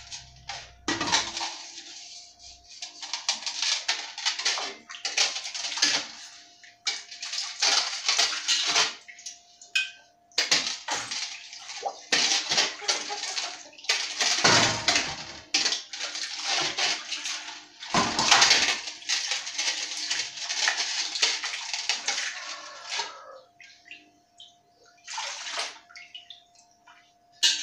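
Water splashing and sloshing as a brass pot is rinsed by hand in a steel basin, in repeated bursts about a second long that die away near the end. A faint steady hum runs underneath.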